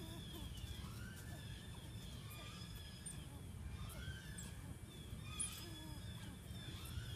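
Many short, high chirping calls repeating throughout, with a few rising whistled calls lower down, over a low steady rumble of outdoor background noise.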